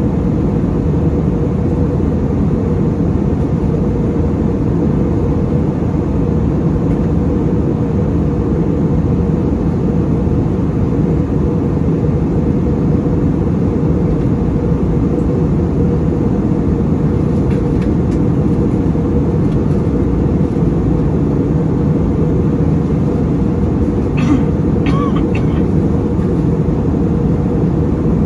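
Steady cabin noise of an Airbus A320neo in flight: engine and airflow rush, deep and constant, with no change in level.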